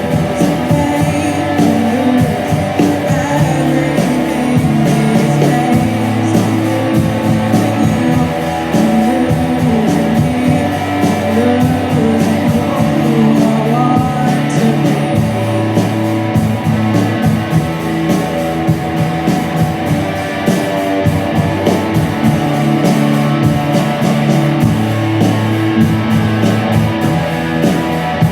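A rock band playing a song live, with guitar, a steady bass line, drums and singing.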